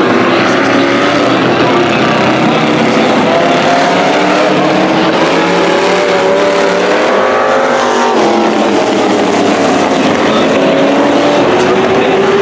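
Engines of several demo cars racing around an oval track, loud and continuous, their pitches rising and falling as the cars accelerate and ease off.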